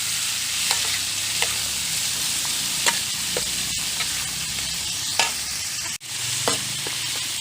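Pork spare ribs and ginger sizzling in hot oil in a pan while being stirred, with a spatula scraping and clicking against the pan now and then. The sound cuts out for an instant about six seconds in.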